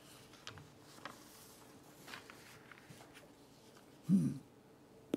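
Quiet room tone with a few faint clicks and rustles, and one brief voice sound from a person about four seconds in, followed by a sharp click near the end.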